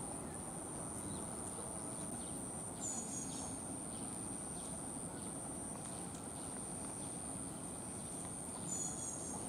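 Steady outdoor ambience: an even hiss with a constant thin high-pitched tone, and faint brief chirps about three seconds in and again near the end.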